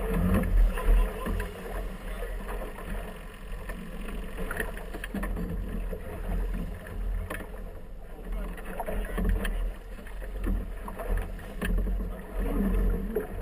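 Inflatable motorboat under way in light chop: water rushing and splashing against the hull over a steady low rumble.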